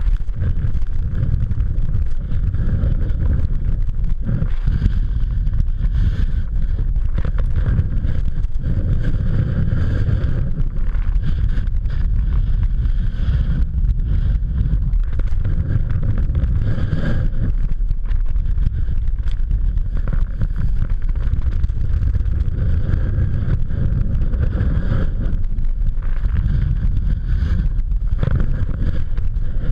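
Wind buffeting an action camera's microphone during a fast descent of a ski run, a steady loud low rumble, with a fluctuating hiss and crackle of edges sliding over packed snow.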